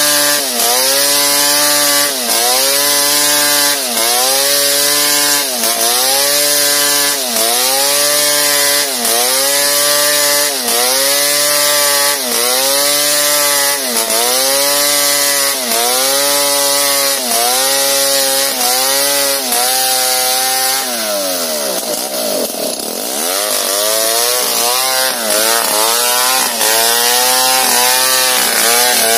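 Two-stroke chainsaw ripping lengthwise along a bangkirai hardwood log at full throttle, its engine pitch dipping and recovering in a regular rhythm about every second and a half as the chain bites and clears. About two-thirds of the way through the throttle drops and the engine falls toward idle for a second or two, then revs up again and resumes cutting.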